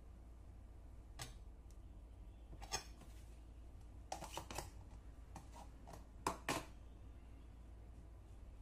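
A scattering of light clicks and knocks from handling bread and a plastic tub of spread on a kitchen counter, clustered in the second half, over a faint low hum.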